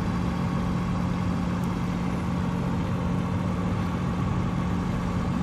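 Steady engine hum, like a motor idling, holding one low tone without change.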